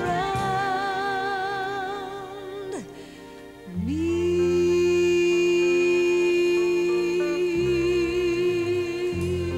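Female singer on a slow ballad with orchestral backing, holding a wordless note with vibrato. After a brief lull about three seconds in, she slides up into a long sustained note with vibrato.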